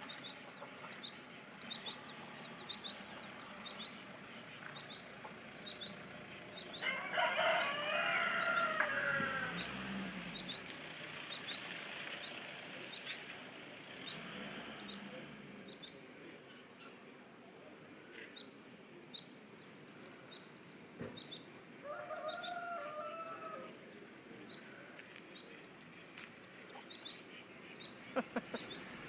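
A rooster crowing: one long crow of about two and a half seconds roughly a quarter of the way in, and a shorter crow-like call about three quarters of the way in. Faint, short high cheeps repeat throughout, fitting baby chicks peeping.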